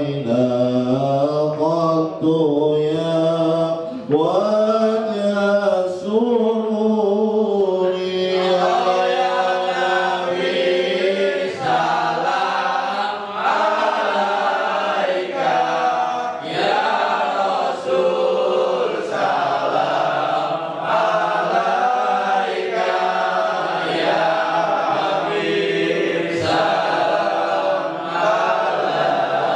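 A man chanting Arabic shalawat, devotional songs in praise of the Prophet, into a microphone in a long, melismatic solo line. Other voices join in from about eight seconds in, and the singing continues as a group chant.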